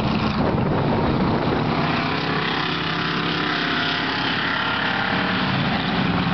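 Engines of several stock cars running at racing speed on the track: a steady mix of engine notes, with no single pass standing out.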